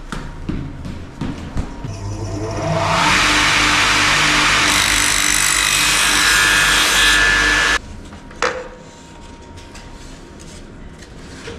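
Electric mitre saw spinning up and cutting through a skirting board: a loud, steady whine and rasp lasting about five seconds that stops suddenly. A single knock and quieter handling noise follow.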